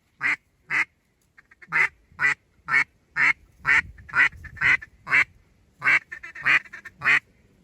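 Mallard-style duck quacks repeating steadily about twice a second, with a short run of quicker, softer quacks twice.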